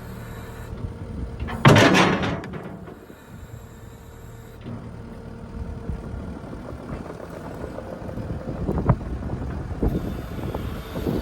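A vehicle engine running with a low rumble, with one loud, sudden burst of noise about two seconds in, fading over half a second. A few sharp knocks come near the end.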